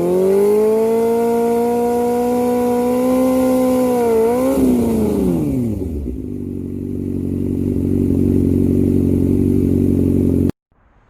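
Suzuki GSX-R750 sport motorcycle's inline-four engine held at high revs, a quick dip and blip, then the revs drop to a lower steady note. The sound cuts off abruptly near the end.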